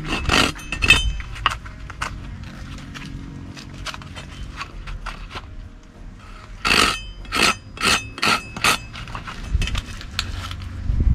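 Teeth of a small hand saw rasped in short back-and-forth strokes across the end of a wooden branch, trimming off ragged fibres. A quick run of strokes at the start, fainter strokes after it, then a louder run of about six strokes some seven seconds in.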